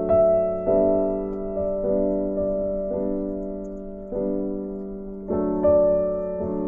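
Background piano music: slow chords, each struck and left to ring and fade before the next, about one a second.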